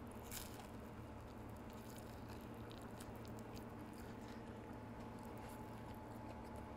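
Faint biting and chewing of a gravy-dipped, griddle-crisped rye sandwich: a bite just after the start, then scattered soft clicks of chewing over a low steady hum.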